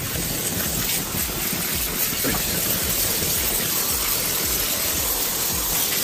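Steam cleaner in steam mode, jetting a loud, steady hiss of steam onto the fins of a wall-mounted air conditioner's evaporator coil. This is the steam pass that follows the chemical wash.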